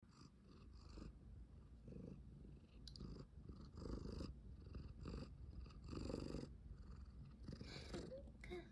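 Domestic cat purring close up, a low rumble that swells and fades with each breath about once a second.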